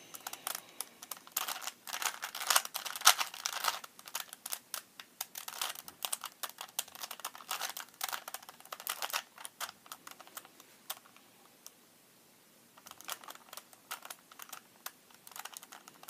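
A plastic 3x3 Rubik's cube being turned by hand, with rapid, irregular clicking of its layers as they rotate. The clicks stop for about two seconds two-thirds of the way in, then resume.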